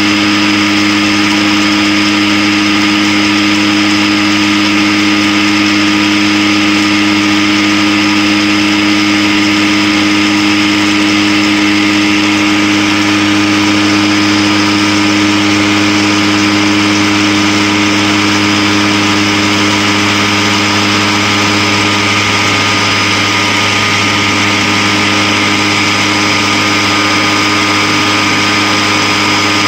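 Homemade tuna-can centrifuge spinning at about 6500 rpm inside a plastic bucket while cleaning waste oil. Its motor runs with a steady hum made of several fixed tones over a hiss.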